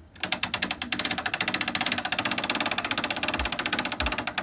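Boat trailer's hand winch clicking fast and evenly as its handle is cranked, a rapid ratchet rattle that starts suddenly just after the start, with a few dull knocks in the second half.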